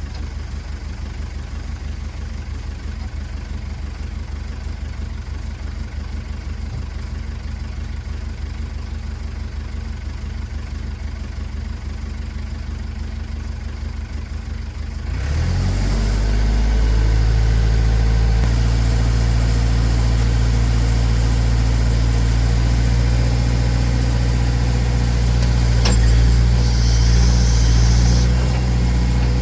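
Massey Ferguson backhoe engine idling with an even low pulse, then throttled up about halfway through and running steadily at higher revs for the rest. Near the end there is a click and a short hiss.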